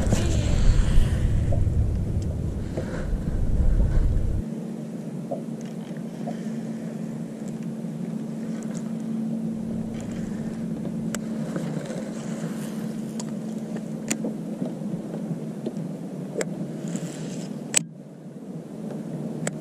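Boat motor hum with a steady tone, heavy wind rumble on the microphone for the first four seconds, and scattered sharp clicks.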